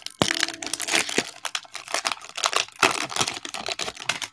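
Foil wrapper of a baseball card pack crinkling and tearing as it is ripped open: a dense, irregular crackle of foil that stops abruptly at the end.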